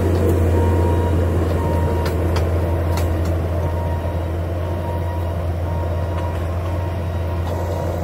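Bobcat T650 compact track loader's diesel engine running steadily under load as it pulls a rake attachment through loose soil. The low drone comes with scattered sharp clicks and clanks and eases a little as the machine moves away.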